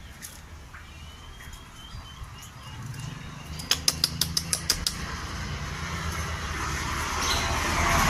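Caged konin (sunbird) giving a few faint, thin, high chirps, then a quick run of about eight sharp ticks, some six a second, around the middle. A light hiss grows toward the end.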